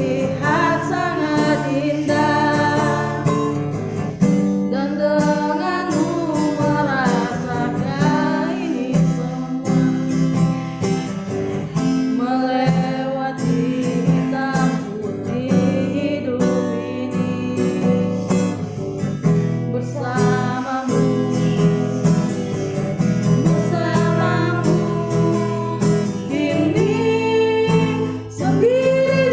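A voice singing a slow song to acoustic guitar strumming.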